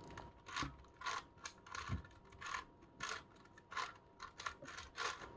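Crazy 3x3x3 Mercury puzzle cube being turned by hand: a rapid, irregular string of soft plastic clicks and clacks as its layers are twisted and snap into place.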